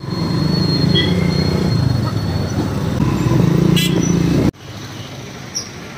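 Road traffic with a vehicle engine running close by and horns tooting now and then. About four and a half seconds in, the sound cuts suddenly to quieter street noise.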